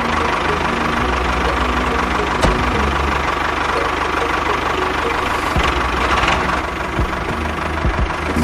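A small motor running steadily with a rattling, engine-like idle.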